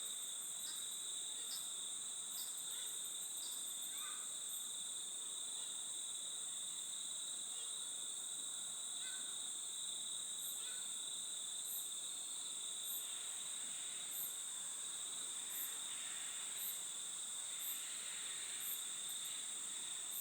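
Insects trilling in a steady high-pitched drone, with short, very high chirps repeating about once a second through the second half and faint bird calls here and there.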